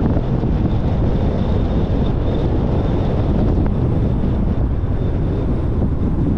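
Steady low rumble of a car driving: road and wind noise, with a faint high whine running through it.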